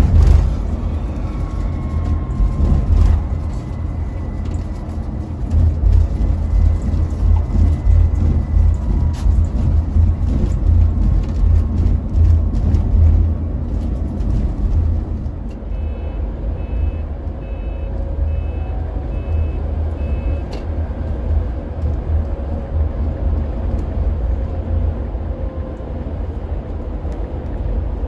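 Steady low engine and road rumble inside a Mercedes-Benz Travego coach driving on a highway. About halfway through, a run of about seven short electronic beeps sounds, each a little under a second apart.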